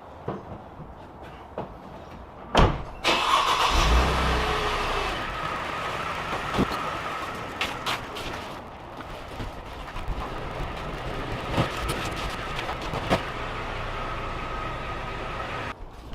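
Mercedes-Benz E350's V6 engine starting about three seconds in, just after a sharp click, then running steadily, with a few light clicks over it.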